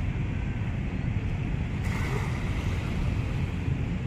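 Wind buffeting the microphone as a steady low rumble, over small waves lapping at the sandy shore. A brief rush of hiss comes about two seconds in.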